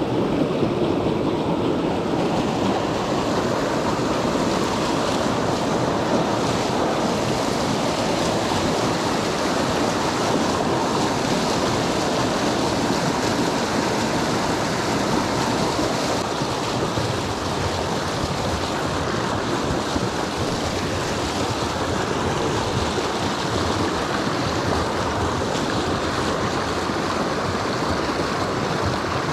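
Steady rushing of a small mountain creek, water running over rocks in a continuous even wash.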